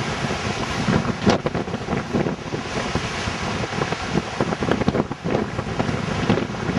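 Wind buffeting the camera microphone in uneven gusts on the open deck of a ship at sea.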